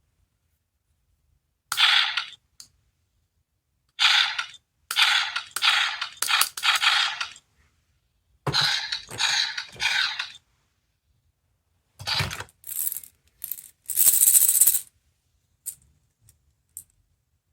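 A gashapon sound-effect toy playing a series of short sound clips through its tiny speaker, six separate bursts with pauses between them, each thin and lacking bass. A few faint clicks follow near the end.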